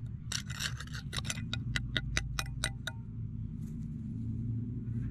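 Metal digging-knife blade scraping caked dirt off a heavy dug-up chunk of steel in quick, even strokes, about five a second, stopping about three seconds in.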